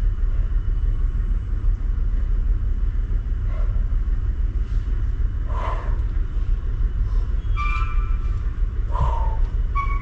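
Outdoor backyard ambience dominated by a steady low rumble, with a few short chirps over it in the second half.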